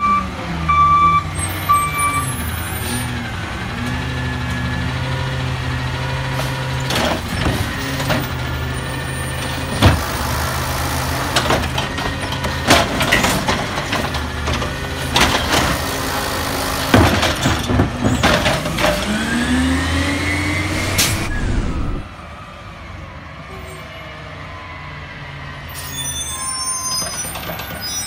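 Peterbilt 320 side-loader garbage truck, running on compressed natural gas, working its automated arm: the engine speeds up and slows as the arm lifts a recycling cart and tips it into the hopper. Several loud knocks come as the cart bangs against the truck, and the engine pitch sweeps upward shortly before the sound drops to a quieter steady idle.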